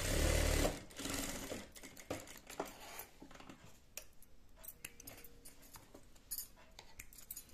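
Sewing machine stitching a seam in a short run at the start, then a weaker second run about a second in. After that come only small scattered clicks as the fabric is handled.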